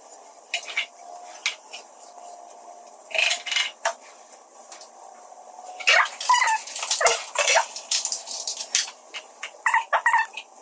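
Battery acid glugging out of a handheld plastic bottle into a lead-acid car battery's cells during refilling, with the bottle's plastic crackling. The glugs come in irregular bursts, busiest in the middle and again near the end.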